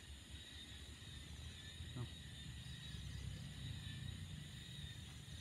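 Faint night ambience: steady high insect chirping over a low rumble, with one short faint sound about two seconds in.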